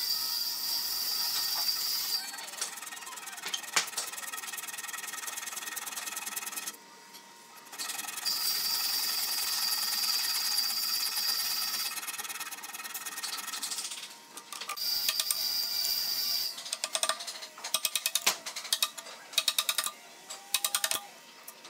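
Hand saw rasping through a thick hardwood timber while cutting a joint, under background music. In the last few seconds come a series of sharp, irregular knocks as a chisel is worked into the wood.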